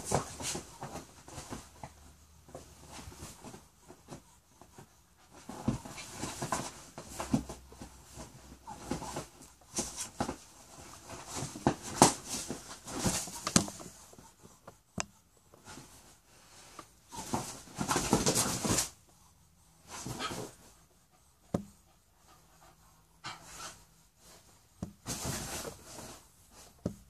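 A dog panting and scrabbling on a leather couch as it spars with a rooster, in irregular bursts with short lulls; the loudest stretch comes about two-thirds of the way through.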